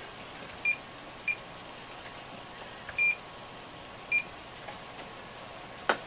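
Digital multimeter beeping four times, short electronic beeps with the third a little longer, while the meter is worked to measure a component's resistance; a single click near the end.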